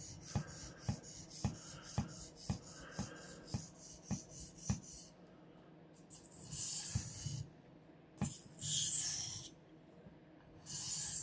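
Steel knife blade stroked back and forth on a 1000-grit Shapton Kuromaku whetstone, a short rhythmic scrape about twice a second for about five seconds, then three slower, longer strokes. The stone is grinding off a burr on the new edge of a GEC #39 pocket knife's spey blade.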